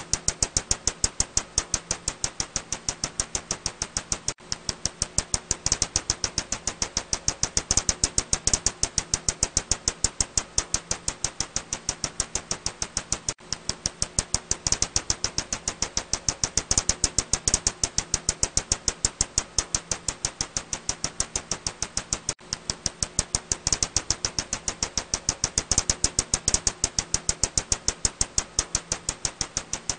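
Ussuri bat echolocation calls made audible as a rapid, steady train of dry clicks, several a second, swelling and fading in loudness every couple of seconds.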